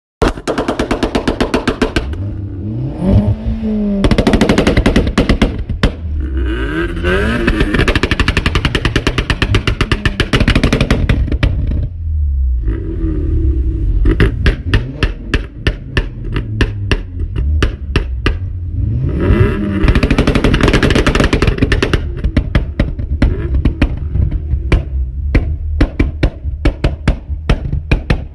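A tuned Audi/VW 1.8T turbocharged four-cylinder engine being revved hard again and again, its pitch rising and falling, with rapid runs of sharp popping and crackling from the exhaust between and after the revs.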